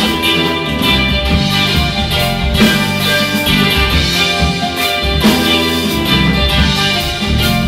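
A live rock band playing an instrumental passage: guitar over bass guitar and a drum kit keeping a steady beat.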